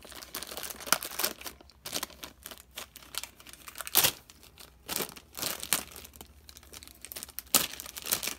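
Paper and plastic coil-binding materials being handled: irregular crinkling rustles, with sharp clicks about one, four and seven and a half seconds in.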